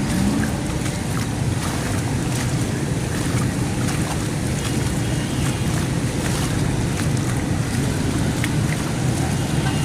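Heavy rain falling steadily: a dense hiss scattered with sharp taps of drops, over a low rumble.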